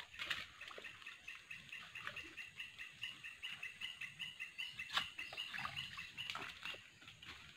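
A calling animal: a rapid, even run of short high chirps, several a second, that goes on for several seconds and stops near the end. A few sharp clicks from handling are mixed in, the loudest about five seconds in.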